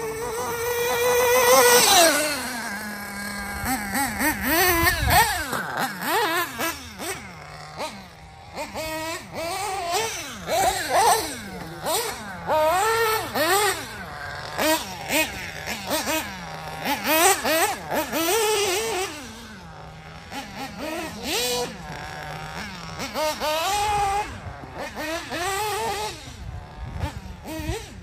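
Picco P3R nitro engine in a Mugen MBX7R 1/8-scale off-road buggy, revving up and backing off over and over as it laps the track. A loud high whine falls in pitch about two seconds in.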